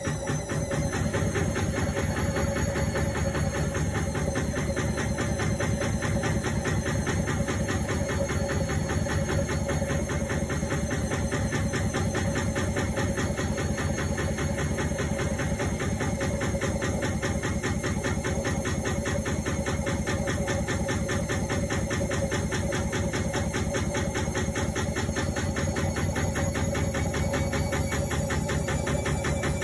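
Indesit washing machine running on a quick wash, a steady machine hum with a fast, even pulse and a held mid-pitched tone.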